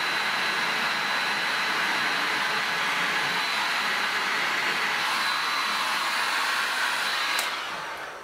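Electric heat gun blowing hot air onto laminating film covering, a steady hiss with a faint high whine. It is switched off with a click about seven and a half seconds in, and the blower winds down.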